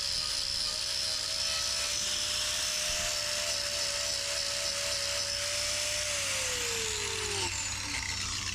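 Hoof-trimming power grinder running at steady high speed with a continuous whine, then spinning down, its pitch falling, about six seconds in.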